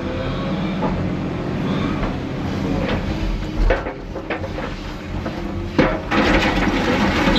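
Diesel engines of an excavator and dumper running steadily while broken concrete is loaded, with several sharp knocks in the middle and a longer rattling clatter near the end as the pieces land.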